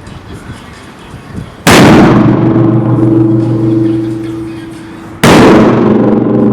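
Two very loud firework bangs from heavy salutes, about three and a half seconds apart, each followed by a long ringing rumble that slowly fades.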